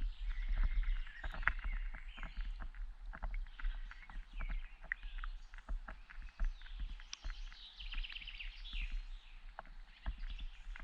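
River water ambience recorded by a camera underwater: a dense, irregular crackle of small clicks with faint high chirping and buzzing over a low steady hum.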